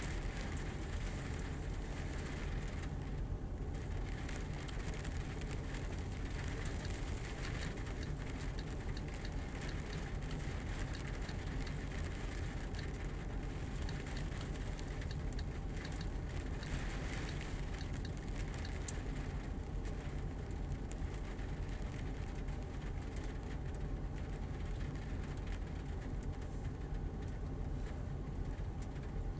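Steady rain falling on puddles and wet ground, a constant patter of drops over a low rumble.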